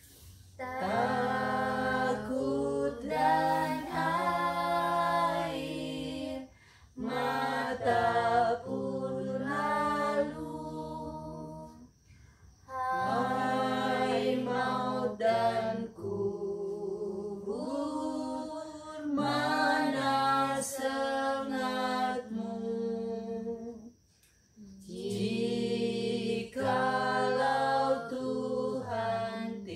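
Unaccompanied singing of a slow melody, sung in long phrases of held notes with short pauses between them.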